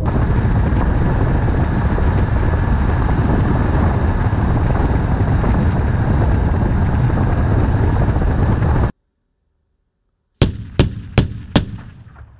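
Heavy armoured 8x8 vehicle running loudly and steadily, cutting off abruptly; then, after a moment of silence, four sharp shots in quick succession about 0.4 s apart, fading away with echo.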